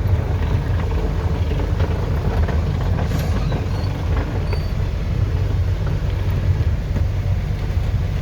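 Truck engine running as the truck drives along, a steady low drone.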